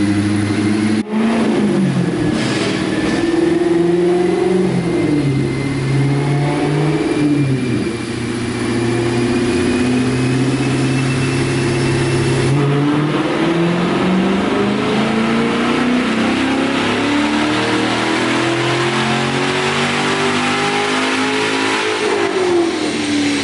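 Chevrolet C7 Corvette V8 on a chassis dyno, revving up and shifting through the gears, then a long full-throttle pull climbing steadily in pitch. The engine drops off near the end as the throttle is lifted.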